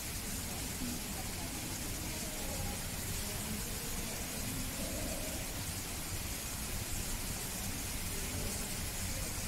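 Steady even hiss of background noise, with faint distant voices murmuring now and then.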